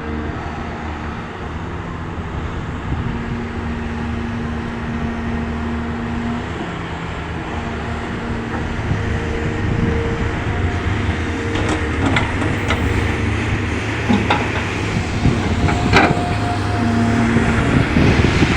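Caterpillar 320D excavator's diesel engine running under hydraulic load, with a few held tones over the engine sound. In the second half it grows a little louder and there are several sharp knocks, typical of rocks striking a dump truck bed as the bucket is emptied.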